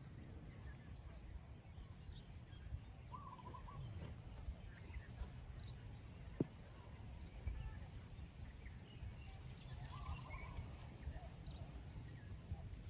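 Outdoor ambience: a low, uneven rumble of wind on the microphone, with faint, scattered bird chirps and a single sharp click about halfway through.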